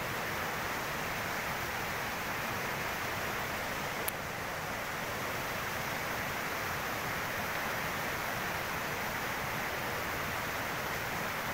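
Steady rushing of flowing water, an even hiss with no rhythm, and a single sharp click about four seconds in.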